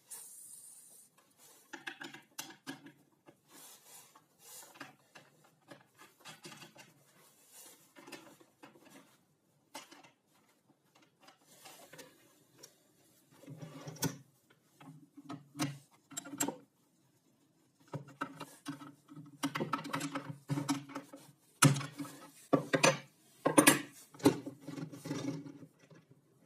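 Irregular clicks, light knocks and rubbing scrapes from hard parts being handled and fitted by hand, growing busier and louder in the second half with a few sharp clicks.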